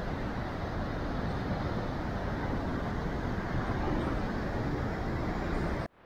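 Heavy surf breaking over shoreline boulders: a steady noise of waves and foam that cuts off suddenly just before the end.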